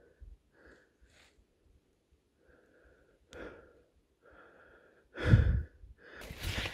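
Quiet, short breaths from a person standing still, then a loud low thump about five seconds in, followed by rustling movement near the end.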